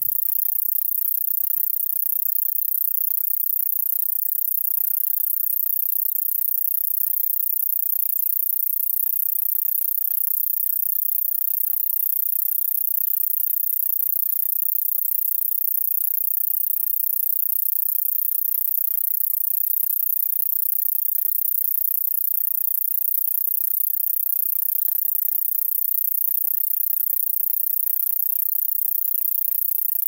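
Pacarina shoemakeri cicada singing: one continuous, very high-pitched buzz, steady in pitch and loudness, with no break.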